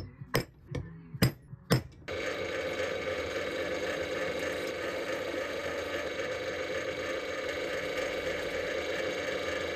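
A hammer taps a punch into a stainless steel plate several times in quick, sharp strikes. About two seconds in this gives way to a bench drill press running steadily, its motor and spindle turning with the bit not yet cutting.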